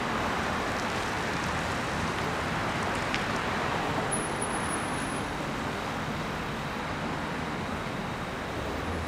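Steady street traffic noise as cars drive past.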